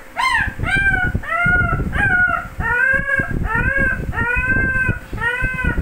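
A six-week-old puppy sick with parvovirus crying in distress: about nine high, drawn-out whimpering cries in a row, each rising and then falling in pitch.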